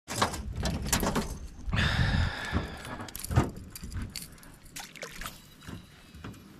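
Water splashing and sloshing in irregular strokes, busiest and loudest in the first two and a half seconds, then thinning out to scattered small splashes.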